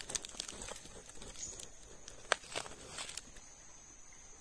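Hand scraping and digging in loose dry soil and leaf litter: a run of scratchy rustles and small clicks, with one sharper tick about two seconds in. The scratching stops near the end, leaving a steady high insect buzz.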